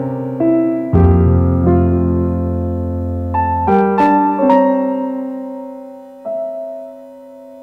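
Background piano music: slow chords and single notes struck a few at a time, each ringing on and fading, getting softer towards the end.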